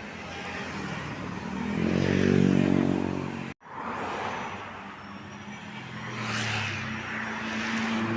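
Buses passing on a road: a bus engine revs up loud about two seconds in. After an abrupt cut, another vehicle passes with a rushing swell.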